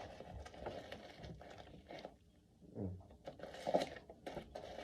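Faint handling noise from a pair of sneakers and their packaging being picked up: light rustles and scattered small clicks and knocks.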